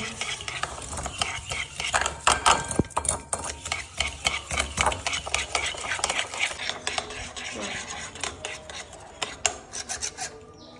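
A utensil stirring and beating egg and sugar in a mixing bowl for cake batter, clinking and scraping rapidly against the bowl, stopping shortly before the end.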